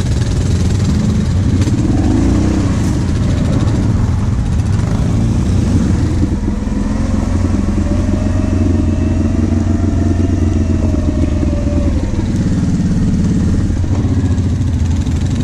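Quad bike (ATV) engines running, loud and steady, with a slow rise and fall in engine pitch about halfway through.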